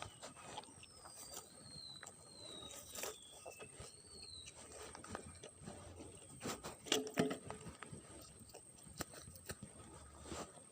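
Faint high, wavering whistled calls for the first four seconds or so, typical of a bird, over scattered short clicks and knocks of handling.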